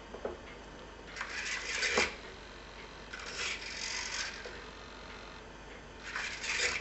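Small hobby servo driving a wooden retractable model-aircraft landing gear: three bursts of whirring as the wheel leg swings, the first and last ending in a sharp knock.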